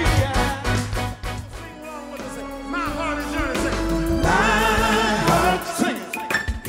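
Live R&B band music that drops away about two seconds in, then a male vocal group singing together over the band.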